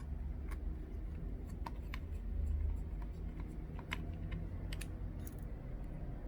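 Irregular small sharp clicks and ticks of a precision screwdriver and tiny screws being driven back into a tablet's frame, over a low steady hum.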